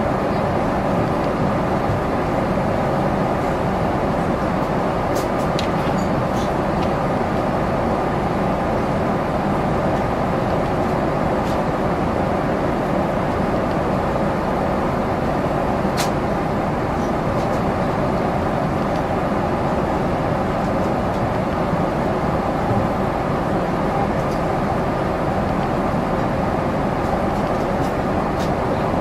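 Steady cabin noise inside a Boeing 777-300ER airliner: an even rush of air and engine sound that does not change. A few faint clicks sound over it.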